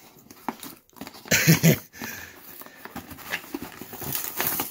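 Cardboard shipping box being torn open by hand, with rough ripping and scraping in several uneven bursts; the loudest comes about one and a half seconds in, and another near the end.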